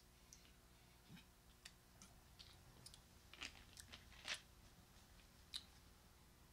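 Near silence with a few faint, scattered small clicks and mouth sounds from a person taking a drink, the loudest of them a little past the middle.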